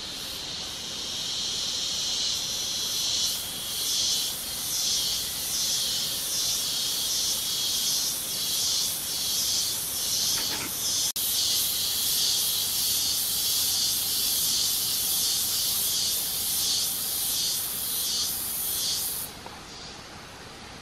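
Loud, high-pitched insect chorus: a rough hiss pulsing about twice a second, with a single click a little past the middle, dropping away suddenly near the end.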